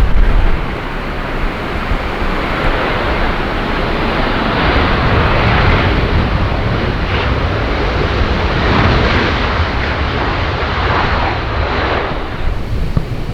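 A jet airliner passing, its engine noise swelling to a peak midway and easing off near the end, with wind buffeting the microphone.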